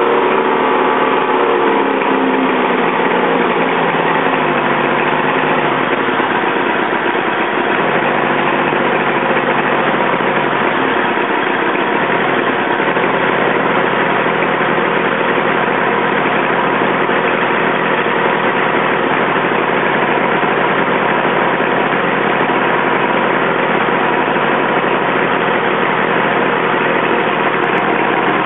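Mercury 115 hp outboard motor idling steadily. Its engine speed eases down over the first few seconds and then holds even. It runs smoothly now that the carburettor floats have been adjusted to cure its flooding.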